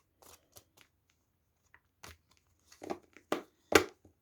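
Tarot cards being shuffled and handled: soft rustles at first, then a cluster of louder crisp card slaps and rustles in the second half, the loudest just before the end.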